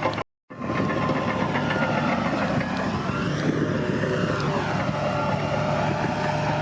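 Bulldozer's diesel engine running steadily, cutting out for a split second just after the start, with one falling tone about four seconds in.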